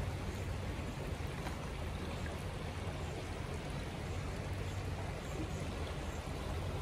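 Steady rush of water from a waterfall, an even noise with a deep low rumble underneath.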